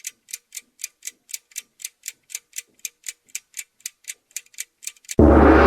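Clock ticking steadily, about four sharp ticks a second. About five seconds in, a loud sustained sound full of steady ringing tones cuts in abruptly.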